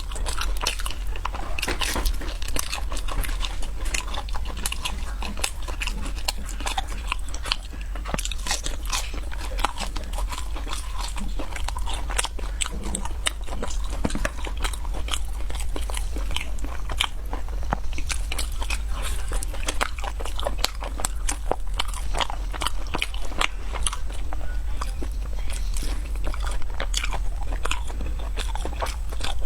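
Close-miked crunching and chewing of crispy fried snacks: dense, irregular crisp crackles from bite after bite and steady mastication, with no pause.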